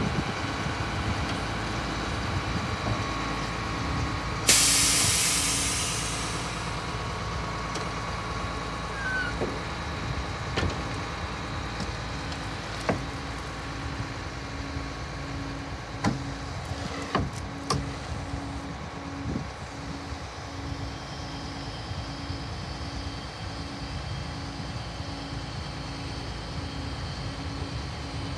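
1991 International asphalt patch truck running steadily, with a low pulsing hum, while its hydraulic hopper body lowers. A sudden loud burst of air hiss comes about four and a half seconds in and fades over a second or two. Several sharp metal clanks follow later.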